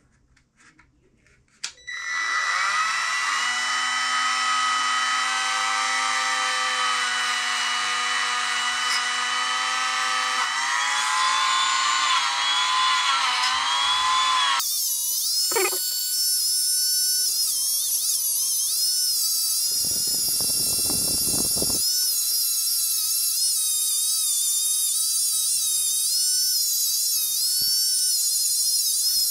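Cordless rotary tool (Dremel-type) starting up about two seconds in and running with a steady high whine, its cone-shaped bit grinding buildup out of the inside of a metal faucet part. About halfway through the whine jumps higher and wavers as the bit works in the bore, with a short stretch of coarser grinding a few seconds later.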